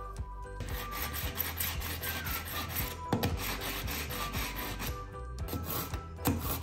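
Kitchen knife being sharpened: rapid rasping strokes of the blade against the sharpener, stopping briefly about five seconds in, then a short last burst.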